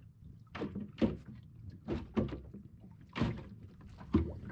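Small waves slapping against the plywood hull of an anchored sailing skiff: about six sharp, irregular slaps in four seconds.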